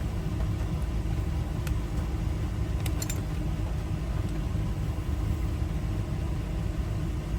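A motor vehicle's engine running with a steady low rumble, with a few faint clicks about two and three seconds in.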